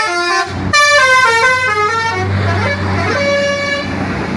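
Indonesian bus's multi-tone telolet horn playing a fast melody of short stepping notes, which stops about two seconds in. The bus's engine then runs on with a steady low sound, and one held horn note comes briefly near the end.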